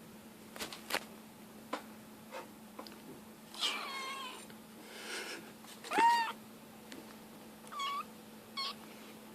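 A kitten mewing four times: a drawn-out mew about three and a half seconds in, the loudest about six seconds in, and two short mews near the end. A few sharp clicks come in the first three seconds.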